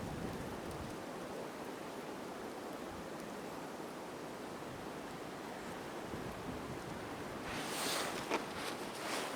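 A steady rushing hiss, then, about two seconds before the end, a few crunching snowshoe steps in snow.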